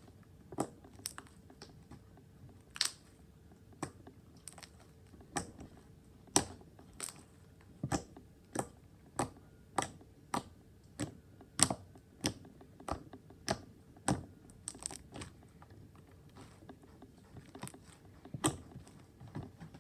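Homemade slime being kneaded by hand, giving off sharp wet clicks and pops at an irregular pace of about one or two a second.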